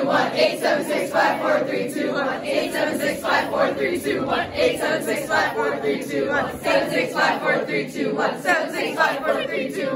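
A large group of young voices singing together without accompaniment, with a strong rhythmic pulse like a chant.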